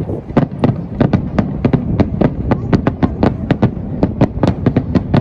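Fireworks display with shells bursting in rapid succession, about four or five sharp bangs a second over a continuous low rumble.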